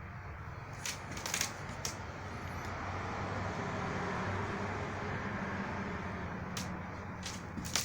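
A passing motor vehicle's low engine rumble, swelling to its loudest midway and easing off, with several sharp pops, three in the first two seconds and three near the end.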